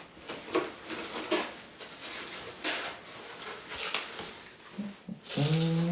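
A mailed package being opened by hand: packaging rustling, scraping and tearing in a series of short, sharp bursts. Near the end comes a short voiced hum.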